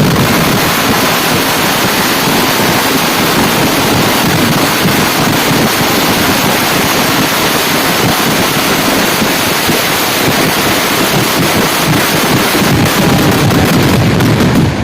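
Dense, continuous fireworks barrage, many firecracker bursts running together into one steady, loud wash of noise.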